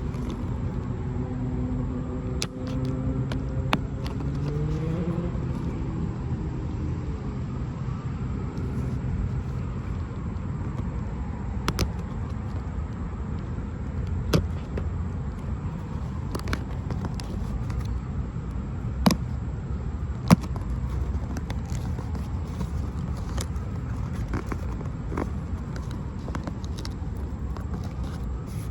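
Steady low rumble of a motor vehicle nearby, its engine hum rising in pitch about five seconds in and then fading. Scattered sharp clicks and snaps of a cardboard box being worked open by hand, two louder ones near the end.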